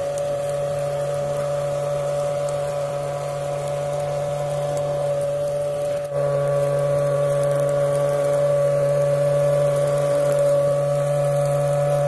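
Small DC motor of a homemade bottle-and-cardboard vacuum cleaner running steadily: a constant whine over a low hum. It dips briefly about halfway through and comes back a little louder.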